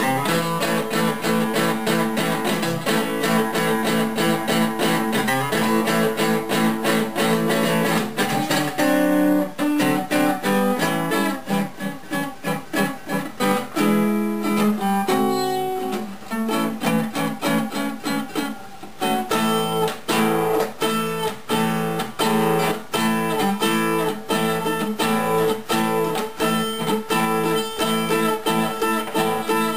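Gibson L-48 archtop acoustic guitar, just repaired, being played freely with strummed chords and picked notes. From about nine seconds in it thins to sparser single-note lines, then fuller strumming returns from about nineteen seconds.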